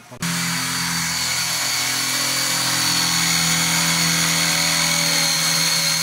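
Cordless drill running at a steady speed, boring a long twist bit up through the wooden bottom of a kitchen wall cabinet: an even, unbroken whine that starts abruptly just after the beginning.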